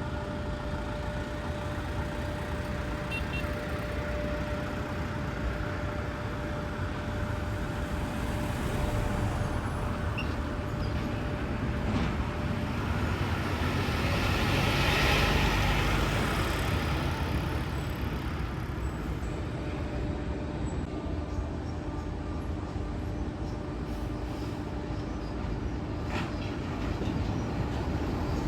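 Road traffic: engine and tyre noise from passing trucks and buses, swelling as one vehicle passes close about halfway through, then easing off.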